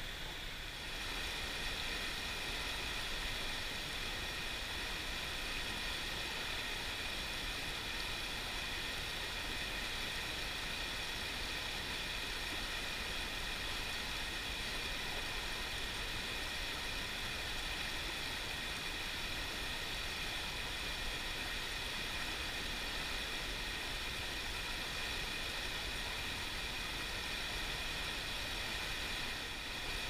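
Fast mountain stream rushing over rocks: a steady, even wash of water noise.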